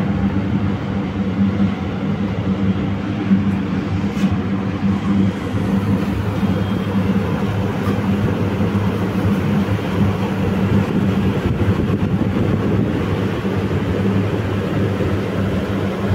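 Steady mechanical hum of several low tones under an even rushing noise, unchanging throughout.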